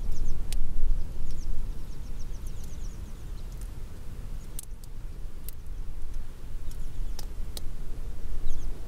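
Wind buffeting the microphone in a low, gusting rumble, strongest about the first second and rising again near the end, with scattered sharp ticks of raindrops. Short runs of faint, quick high chirps come through a few times.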